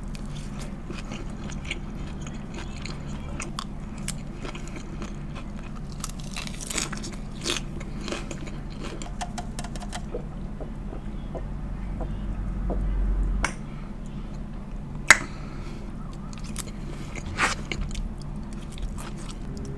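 Close-up eating sounds of a person biting into and chewing a piada, an Italian flatbread sandwich, with scattered crisp mouth clicks and crunches. One sharp click about fifteen seconds in is the loudest sound, and a low rumble swells and cuts off suddenly just before it.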